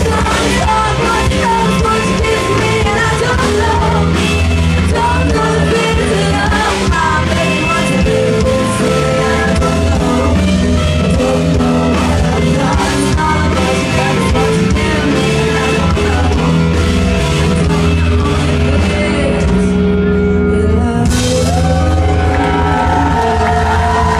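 Live rock band playing a song: a woman singing over electric guitars, bass and drums. Near the end the cymbals drop out for a moment, then come back in.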